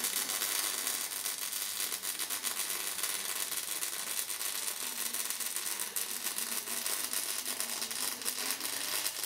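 A MIG welder's arc running a continuous bead on a steel frame: a steady, dense crackling sizzle.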